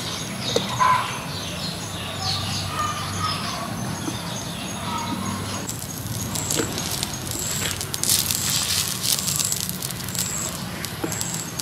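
Birds chirping with short falling calls for the first few seconds. From about six seconds in, a dense crackling sizzle takes over, from cooking oil spread on a hot stone slab over a wood fire.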